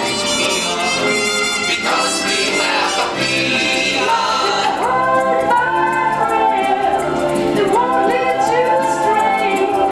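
Musical number from an audio-animatronic stage show's soundtrack: voices singing over a band accompaniment. The brightest part of the backing drops away about five seconds in, leaving the singing more to the fore.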